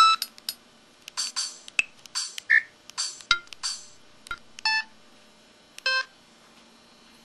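Samsung SCH-E110 mobile phone playing its built-in sound effects: a string of short electronic beeps and chirps, some pitched and some noisy, each lasting a fraction of a second with gaps between, thinning out after about five seconds.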